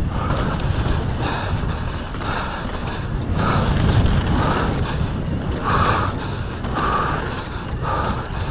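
Wind buffeting the camera microphone and tyres rumbling over a dirt trail during a fast downhill mountain bike run. Through it the rider breathes hard, roughly once a second.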